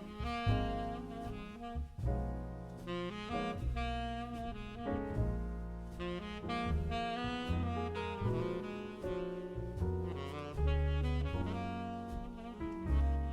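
Background jazz music: saxophone lead over piano and double bass, with a steady beat.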